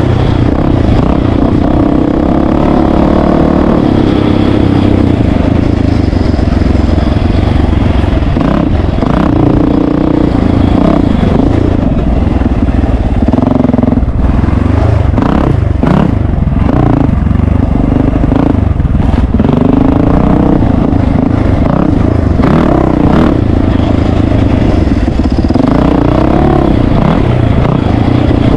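Yamaha 450 four-stroke dirt bike's single-cylinder engine running under load, its pitch rising and falling again and again as it is throttled on and off. Scattered clatter and knocks from the bike over a rough, rocky trail.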